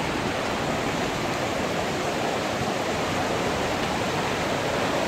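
Steady rush of running water pouring from inlet pipes into concrete trout-farm raceways.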